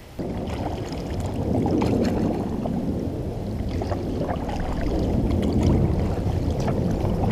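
Kayak paddle strokes splashing and dripping in river water, with scattered light knocks of the paddle over a steady low rumble.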